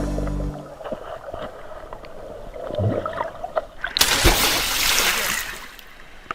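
River water splashing: a burst of splashing about four seconds in, lasting about a second and a half, after a tail of background music at the start.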